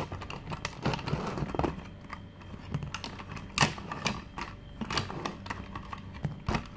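Hard plastic toy being handled and knocked about on a leather seat: irregular clicks and taps, the loudest about three and a half seconds in.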